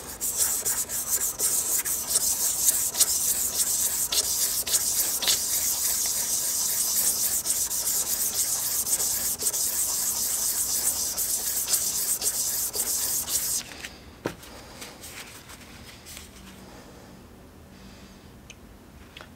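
A small metal ram's face rubbed in figure eights on lubricated 600-grit sandpaper over a flat plate: a steady gritty scrubbing hiss that stops about 13 to 14 seconds in, followed by a single knock and quieter handling.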